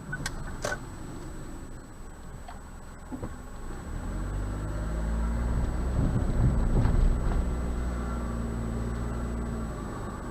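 Car engine and road noise heard from inside the cabin through a dashcam, growing louder about four seconds in, with a few knocks around six to seven seconds. Two sharp clicks come near the start, and a faint steady high whine runs underneath.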